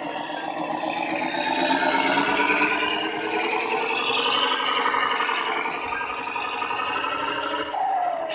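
Electric motor and geartrain of a radio-controlled Hino 700 dump truck whining and rattling as it drives through mud. The whine's pitch creeps upward, then drops away sharply near the end as the truck slows.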